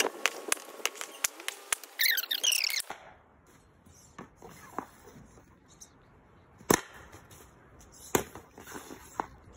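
Hockey slap shots: the stick blade slaps the plastic shooting pad and cracks against the puck, several separate sharp cracks with the loudest two near the end. The first three seconds are busier, with rapid clicks and high chirps.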